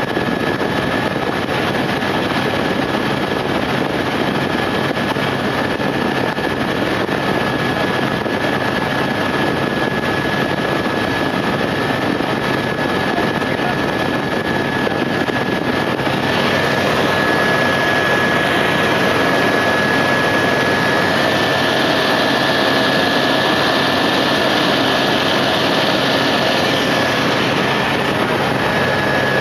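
Helicopter in flight, heard from inside the cabin: a steady, loud engine and rotor drone with a constant high whine. It grows a little louder and brighter about halfway through.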